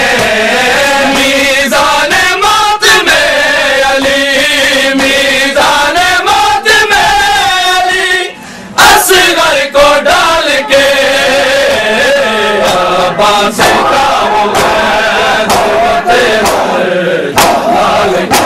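Crowd of men chanting a Muharram noha refrain together in long, drawn-out notes that glide slowly in pitch. Sharp slaps, typical of matam chest-beating, come every second or so. Just after eight seconds the chant breaks off briefly, then comes back in with a hard slap.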